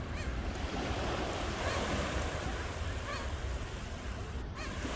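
Ocean surf washing in steadily, with a bird giving short rising-and-falling calls about four times, roughly every second and a half.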